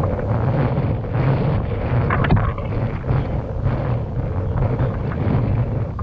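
Wind buffeting the microphone, a steady low rumble, with one brief knock a little over two seconds in.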